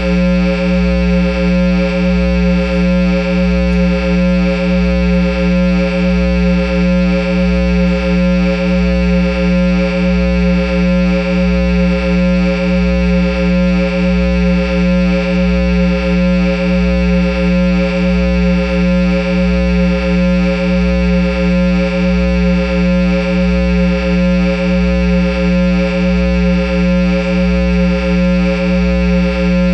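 A Line 6 guitar amplifier head and Peavey speaker cabinet giving off a constant electrical hum and drone, several steady tones at once over a low throb that pulses about twice a second.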